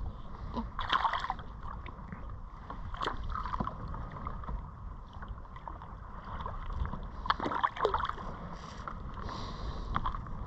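Sea water lapping and sloshing against a fishing kayak's hull, a steady low wash broken by a few small splashes and knocks.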